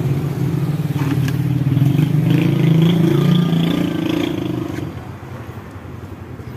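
A motor running with a steady low hum that swells in the middle and fades away after about four and a half seconds.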